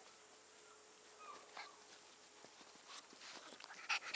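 Faint scuffling and rustling of puppies playing on a cloth blanket, with a couple of sharp rustles or knocks near the end.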